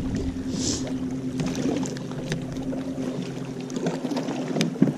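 Steady low hum from a fishing boat, with a brief hiss about half a second in and a few faint clicks as a baitcasting reel works a jerkbait.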